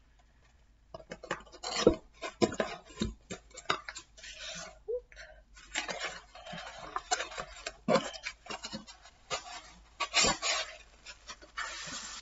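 A small cardboard box being handled and opened: cardboard and paper rustling and scraping, with irregular taps and knocks.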